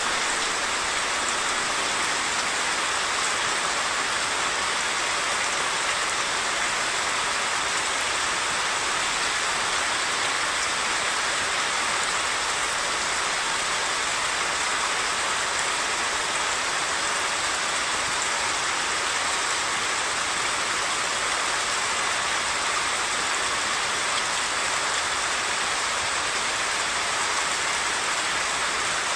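Heavy rain falling as a constant, even hiss, mixed with the rush of a flooded stream in spate.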